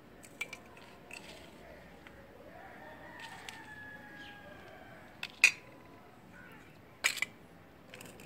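Metal spoons clinking and scraping against stainless steel plates while yogurt and sugar are mixed into boiled vermicelli. There are a handful of sharp clinks, the loudest about five seconds in and again about seven seconds in.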